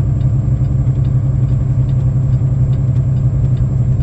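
Semi-truck engine running at a steady low drone under load, heard from inside the cab, with faint light ticks repeating over it.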